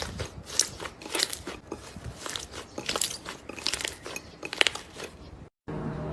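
Crunchy slime being squeezed and pressed, giving an irregular run of crisp crackling crunches. It breaks off abruptly near the end.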